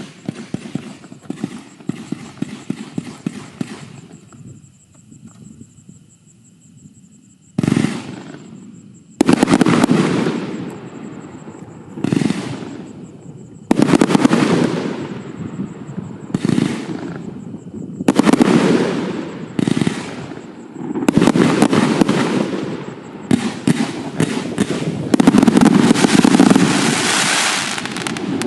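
240-shot consumer firework cake firing: a quick run of sharp cracks, a short lull, then loud bursts every couple of seconds, each dying away over a second or so. Over the last few seconds the bursts run together into one dense finale volley.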